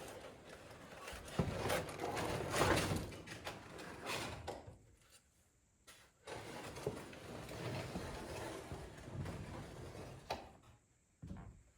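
Wooden boat parts being handled and shifted: irregular scraping and rustling with a sharp knock about a second and a half in, and a short pause about halfway through.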